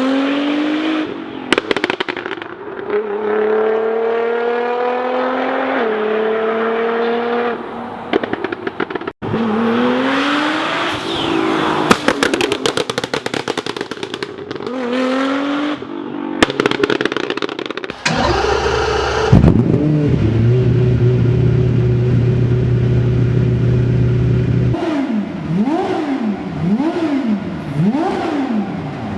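Supercar engine accelerating hard through several gears, its pitch climbing and dropping back at each upshift, with a few sharp exhaust cracks. Later it is held at steady high revs for several seconds, then revved up and down rapidly near the end.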